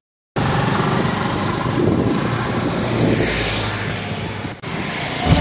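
Motorcycle and scooter engines running on the move, under a steady rushing noise. It starts after a moment of silence and drops out briefly about four and a half seconds in.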